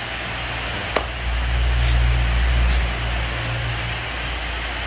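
A click, then a small 340 W electric power tool motor runs unloaded with a low hum for about two seconds and winds down. The tool is missing its rotating head.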